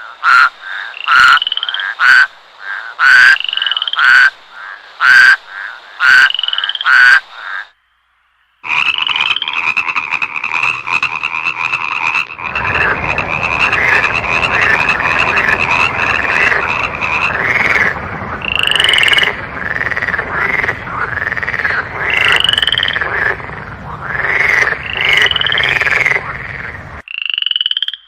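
Frogs calling: first one frog's loud call repeated about once a second, then, after a brief break, a dense chorus of many frogs with a steady high trill under overlapping croaks.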